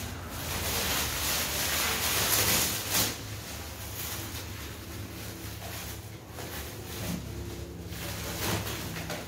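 Plastic stretch wrap crinkling and rustling as it is pulled off a new upholstered bed frame, in uneven spurts, loudest two to three seconds in.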